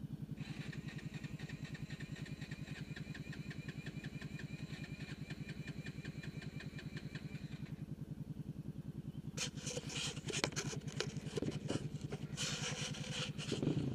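A KYMCO ATV's electric starter cranking for about seven seconds, then stopping abruptly, as the rider tries to restart the quad stuck in deep mud; another ATV engine idles steadily underneath. Near the end comes a spell of rough, crackly noise.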